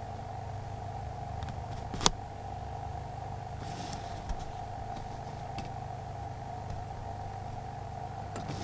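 A steady machine hum with a low drone and a higher tone running under it, and one sharp click about two seconds in.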